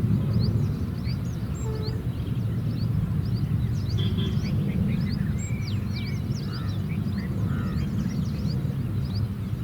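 Low, steady rumble of a WDG4 diesel locomotive's engine heard from a distance, with many birds chirping over it.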